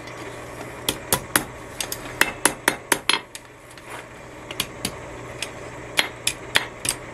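Blacksmith's hand hammer striking a small forged metal pendant on an anvil: light, sharp metallic blows in irregular runs, with a pause of about a second near the middle.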